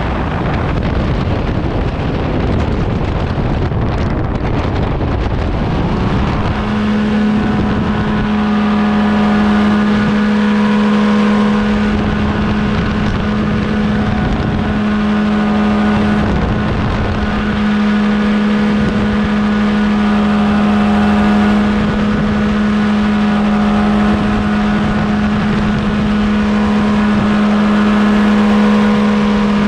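Paramotor trike's engine and propeller during takeoff. A noisy rumble for about six seconds, then the engine note rises and settles into a steady high pitch at full power as the trike lifts off and climbs.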